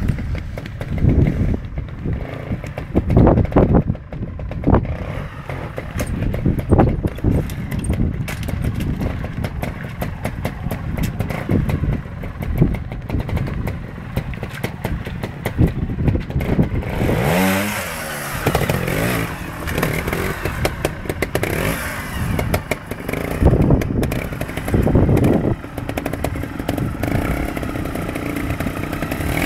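Beta trials motorcycle engine revving in short throttle bursts as the bike climbs over rocks, with one longer rev whose pitch swings up and down a little past halfway.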